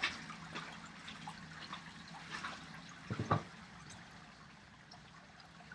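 Faint water trickling and dripping, with scattered small ticks and a few louder knocks about three seconds in.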